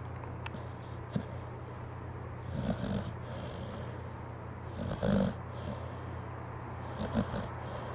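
Sleeping pit bull snoring, three snores about two and a half seconds apart.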